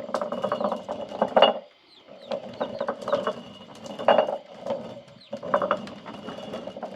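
Hand-turned stone mill grinding dried corn kernels: a rough grinding with sharp cracking of kernels, going in repeated turns with short lulls about two seconds in and again about five seconds in.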